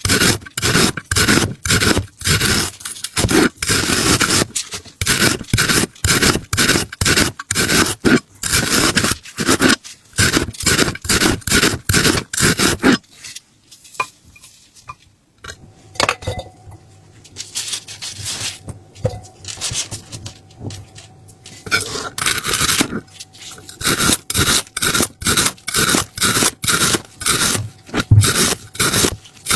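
Rapid, repeated scraping strokes, about three a second, that stop for several seconds midway and then resume.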